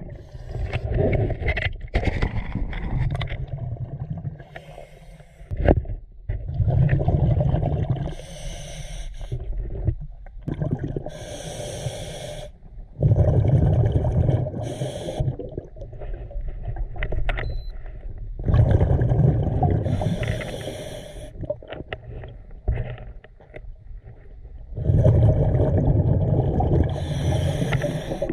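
Scuba diver breathing through a regulator underwater: a short hissing inhalation, then a long bubbling rumble of exhaled air, about every six seconds.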